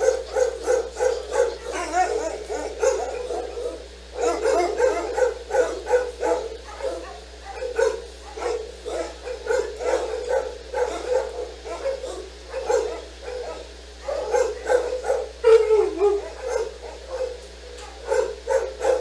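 Dog barking over and over, several short barks a second, with brief lulls about four seconds in and again about fourteen seconds in. A short falling whine comes a little past the middle.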